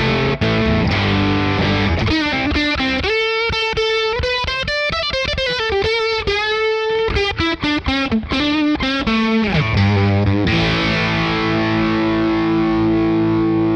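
Overdriven electric guitar boosted by a JHS Clover preamp pedal into a Fender '65 Deluxe Reverb amp. It plays chords, then a single-note lead line with string bends, and ends on a chord left to ring out.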